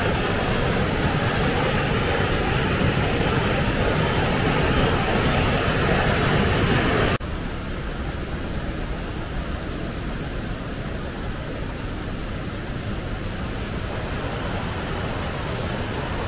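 Steady rush of a mountain waterfall and stream: loud, even white-water noise. About seven seconds in it cuts abruptly to a slightly quieter rush of the same kind.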